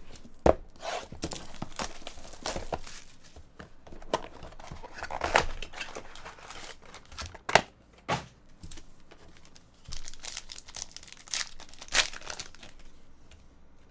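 Foil trading-card packs and their cardboard box being torn open by hand: ripping and crinkling of the wrapper, with several sharp snaps.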